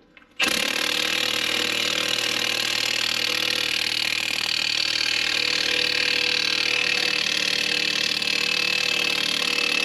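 Milwaukee cordless impact wrench hammering steadily for about nine seconds, starting about half a second in and cutting off just before the end. It is driving the bolt of an on-car press that pulls a front wheel bearing into the steering knuckle.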